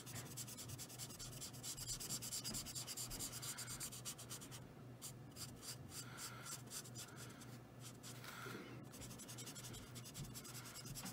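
Faint scratchy rubbing of a Spectrum Noir alcohol marker's nib on paper, laying down colour in quick repeated short strokes.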